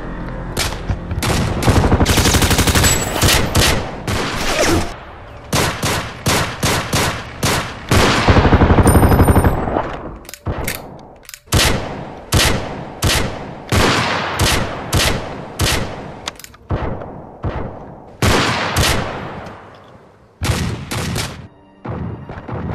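Sustained gunfire: rapid automatic bursts, densest about two seconds in and again about eight seconds in, then separate shots and short bursts at an uneven pace.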